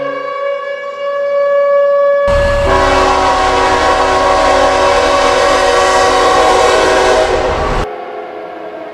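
Ballpark home run horn sound effect. A chord of horn tones rings out and fades. Then, about two seconds in, a loud multi-tone horn blast over a rumbling noise sounds for about five seconds before dropping to a quieter tail that is cut off.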